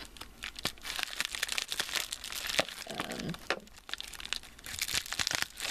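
Plastic mailer envelope crinkling and rustling as it is handled and cut open with scissors, with many sharp clicks and snips.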